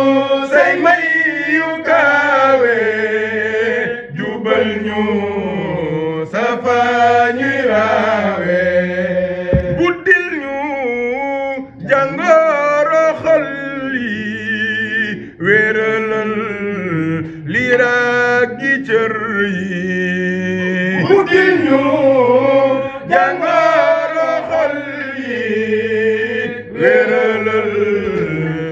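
Male zikr chanting: a devotional Sufi chant sung in long phrases with held, wavering notes.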